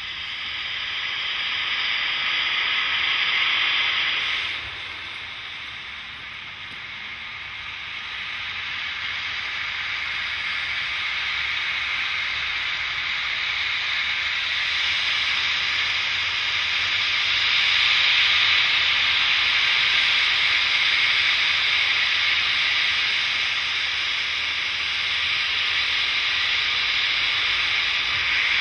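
Steam locomotive hissing as steam blasts out from its open cylinder cocks while it starts to move, a steady rushing hiss with no chuffing beat. The hiss drops back about four seconds in, then builds again and stays loud.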